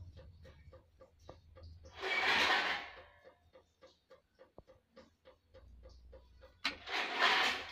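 Crumbly sesame laddu mixture rustling as a hand scoops and squeezes it against a steel bowl, in two rough swells, the second near the end. Faint rapid ticking, about five a second, runs underneath.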